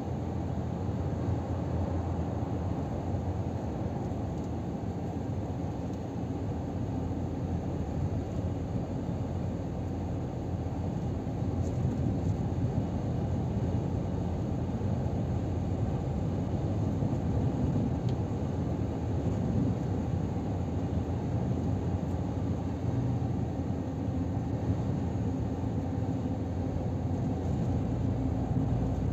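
Scania R500 truck cruising at motorway speed, heard inside the cab: a steady low engine drone mixed with road and tyre rumble, getting slightly louder partway through.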